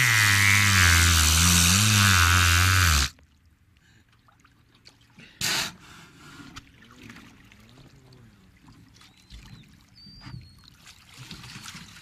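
An orca making a buzzing, engine-like drone whose pitch wavers up and down, imitating a boat motor. It cuts off suddenly about three seconds in, leaving faint water sounds, a short burst of noise, and a few faint high whistles near the end.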